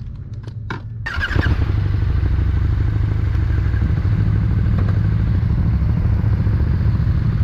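KTM 1290 Super Duke R V-twin motorcycle engines idling. After a few clicks, about a second in, the nearer engine comes in with a brief whine and settles into a loud, steady idle.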